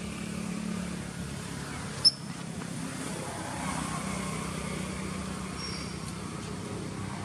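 A steady low motor hum, with a single short, sharp high-pitched click about two seconds in.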